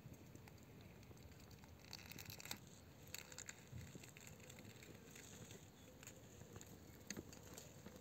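Faint scratching and crunching of dry soil clods under a tortoise's feet and plastron as it crawls, with scattered small crackles and clicks, busiest a couple of seconds in and again near the end.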